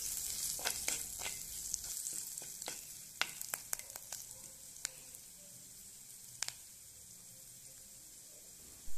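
Coconut oil sizzling in a clay pot with garlic, curry leaves, pandan and spices frying for a tempering, a wooden spoon stirring through it, with scattered sharp pops and clicks. The stirring stops about halfway and the sizzle settles to a quieter, steady hiss.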